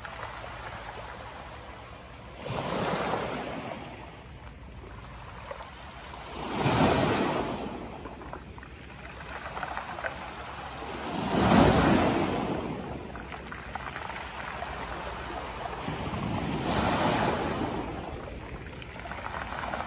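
Small Baltic Sea waves breaking and washing up over a pebble shore. The surf swells and falls back four times, roughly every four to five seconds, and the loudest surge comes about halfway through.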